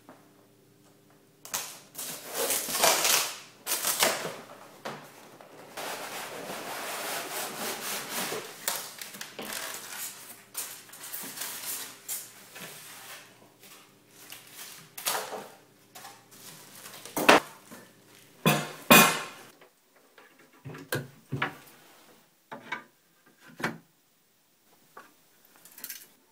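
Rustling, scraping and crunching of a cardboard box and polystyrene packing being handled, with plastic wrap crinkling, followed in the second half by a run of sharp knocks and clicks.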